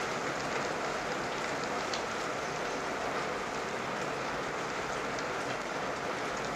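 Steady hiss of heavy rain pouring down, with faint scrapes of a wooden spatula stirring a thick mixture in a nonstick frying pan.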